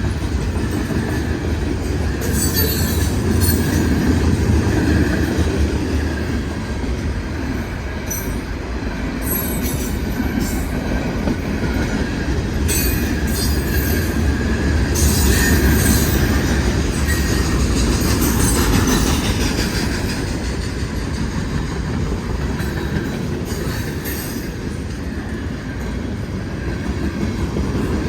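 Freight cars of a CSX manifest train rolling past at a grade crossing: a steady heavy rumble of wheels on rail with rhythmic clatter. Short high-pitched wheel squeals come and go throughout.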